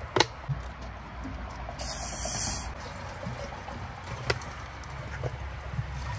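Liquid poured from plastic bottles into a large glass jar, the cola splashing and fizzing as it goes in. Two sharp knocks, one right at the start and one past the middle, and a short loud hiss about two seconds in.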